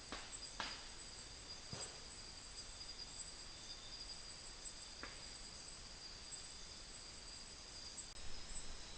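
Night insects chirring in a steady high-pitched drone over a faint hiss. There are three faint sharp knocks or clicks in the first two seconds and one more about five seconds in.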